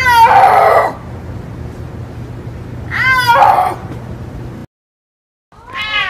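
Snow leopard calling: two short cries, each under a second long and about three seconds apart, over a low steady hum. After a brief silence a new cat call begins right at the end, the clouded leopard entry of the compilation.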